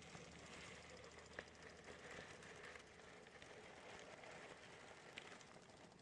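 Near silence: a faint, even outdoor hiss with two soft ticks, one about a second and a half in and one near the end.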